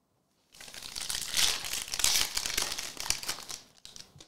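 Foil wrapper of a 2021-22 Revolution basketball trading-card pack being torn open and crinkled by hand: a crackly rustling that starts about half a second in, lasts about three seconds, and trails off near the end.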